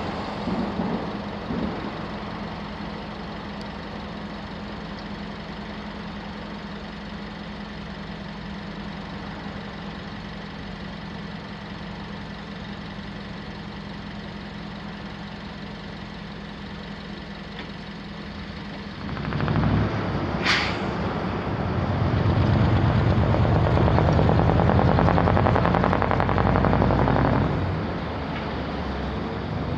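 A steady low hum, then a heavy vehicle passes close by, with a brief sharp squeal as it arrives and a loud rumble for about six seconds before it drops away.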